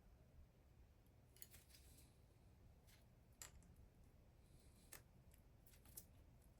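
Near silence with a handful of faint, sharp clicks and ticks spaced irregularly over a few seconds: a bicycle chain being handled as one link is taken out.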